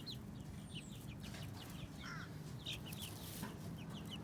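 A flock of young chickens peeping and chirping, many short high calls scattered throughout, over a steady low hum.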